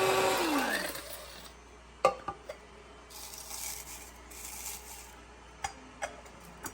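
Shardor electric blade grinder's motor spinning, then winding down and stopping within the first second, its pitch falling as the blade slows. Then several sharp clicks and knocks and stretches of rubbing and scraping as the grinder's lid and steel bowl are handled.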